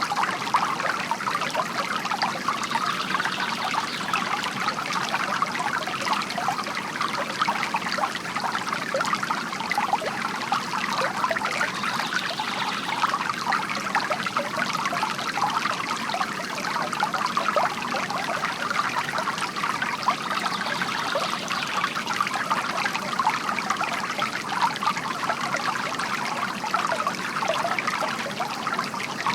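Water from a bamboo fountain trickling and splashing steadily into its basin.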